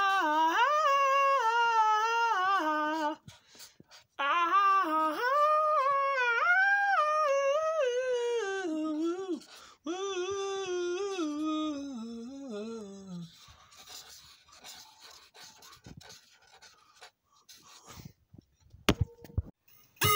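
A person humming a wordless tune in three long phrases, the pitch wavering between held notes; the last phrase slides down and stops about 13 seconds in. After that only faint clicks and rustles remain.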